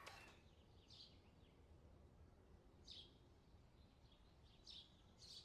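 Near silence: faint room tone with a few faint, brief high-pitched blips a second or two apart.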